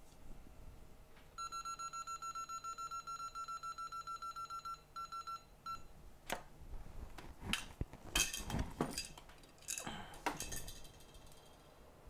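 Rapid electronic beeping, about six or seven short high beeps a second for about four seconds, ending in two brief stuttering bursts. This is followed by a run of sharp clicks and clinks, with the loudest clatter about eight seconds in.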